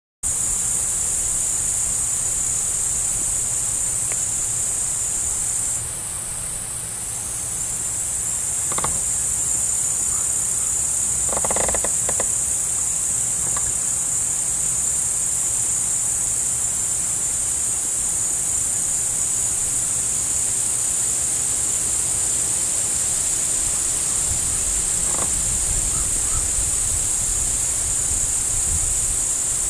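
Crickets chirping in a dense, steady, high-pitched chorus that runs without a break, with a few faint brief sounds in the middle.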